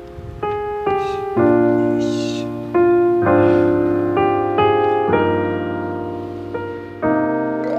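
Background piano music: notes and chords struck about once a second and left to ring and fade.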